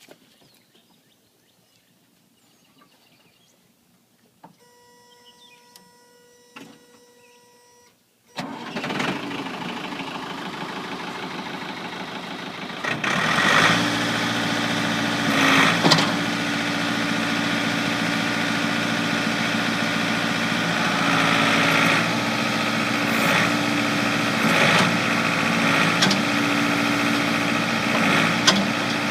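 Ford New Holland 555D backhoe being started. A steady dash warning buzzer sounds for a few seconds, then the diesel engine cranks and starts, and settles into a steady run with a few sharp knocks.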